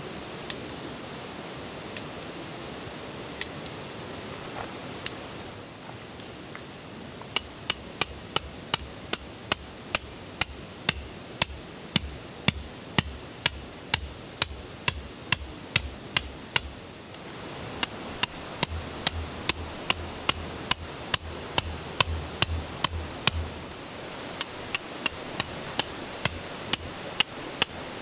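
Hammer driving a metal tent peg into the ground: a few single strikes, then steady runs of blows about two a second, each with a bright metallic ring.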